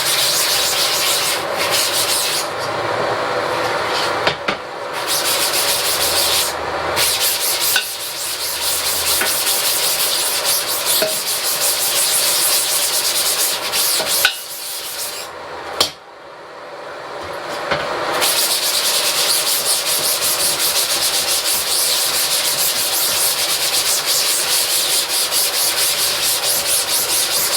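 Scrub brush scrubbing degreaser into a screen-printing screen, a steady rasping rub of bristles on the mesh, easing off for a few seconds about halfway through, where there are two short knocks.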